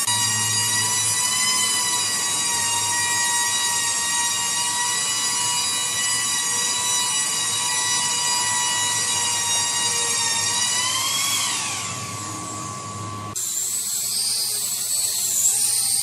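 An electric power tool's motor running with a steady high whine, then spinning down about eleven seconds in. After an abrupt change, a second, wavering high-pitched tool whine is heard near the end.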